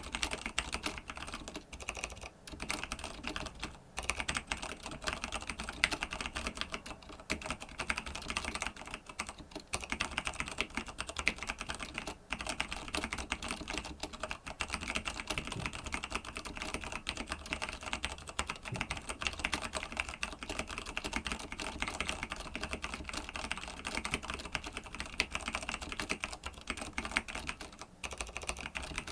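Continuous fast typing on a TG3 BL-82 mechanical keyboard with stock vintage Cherry MX Clear switches: a dense run of keystroke clacks and bottoming-out taps, with a few short pauses.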